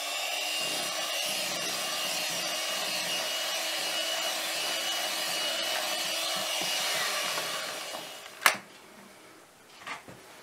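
Handheld electric mixer running steadily in thick cake batter, a whirring with a thin high whine on top, winding down about eight seconds in. A single sharp knock follows soon after.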